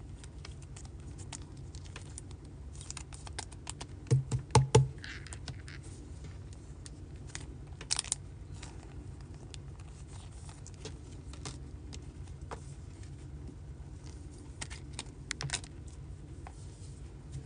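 Trading cards and plastic sleeves being handled: scattered small clicks and rustles of plastic as cards are slipped into a penny sleeve and a rigid toploader, with a cluster of louder knocks about four seconds in, over a low steady hum.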